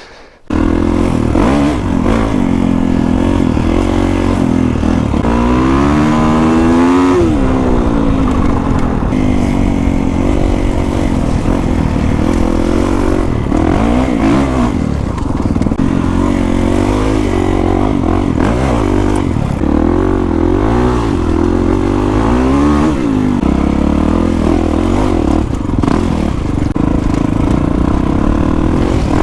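Kawasaki KX450X dirt bike's single-cylinder four-stroke engine through an FMF 4.1 RCT exhaust, heard from onboard while trail riding. It revs up and falls back again and again as the rider accelerates and shifts.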